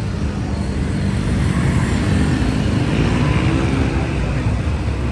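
Road traffic passing close by, engines running, with one vehicle's engine note rising and falling as it goes past about three seconds in.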